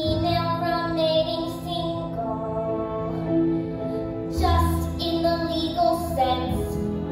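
A girl singing a song over instrumental accompaniment, with a low bass part joining about halfway through.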